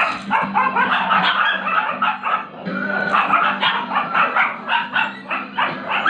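Several dogs barking over and over, several short barks a second, as they wait to be fed.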